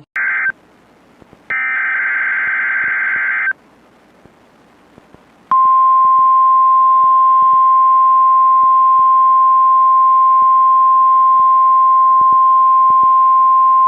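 NOAA Weather Radio weekly test alert: a short burst and then a two-second burst of buzzy SAME digital header data, followed about five and a half seconds in by the long, steady 1050 Hz warning alarm tone.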